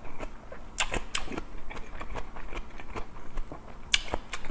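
Close-miked chewing with repeated wet mouth smacks and clicks, a mouthful being eaten.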